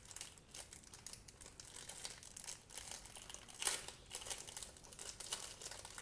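Thin clear plastic wrapper crinkling and rustling as it is pulled off a small plastic whistle keychain, in irregular crackles with a louder burst a little past the middle.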